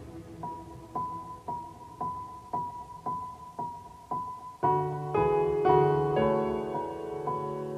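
Soft piano background music: a single high note repeated about twice a second, joined a little past halfway by fuller chords and a bass line.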